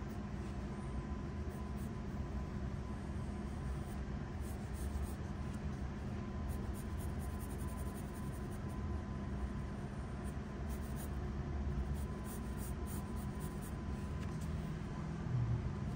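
Graphite pencil scratching across sketch paper in runs of quick shading strokes, over a steady low background hum.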